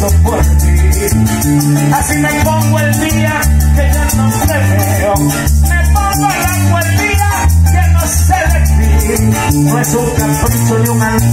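Live Venezuelan llanera music: harp and cuatro with maracas over a steady, deep bass line, and a man singing through a microphone and amplifier.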